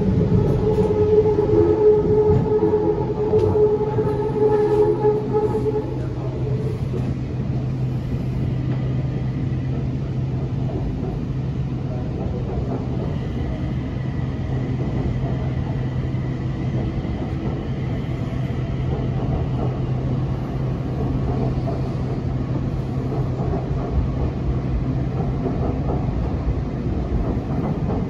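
BTS Skytrain car running along the line, heard from inside the car: a steady rumble with a low hum. A higher whine dies away about six seconds in.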